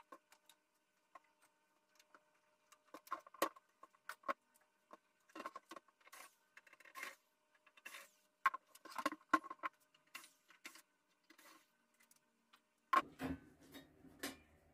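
Scattered clicks, taps and clinks from a Bosch mixer amplifier's metal case being handled and turned on a stone tabletop. About 13 seconds in comes a louder stretch of scraping and rubbing as the sheet-metal top cover is lifted off.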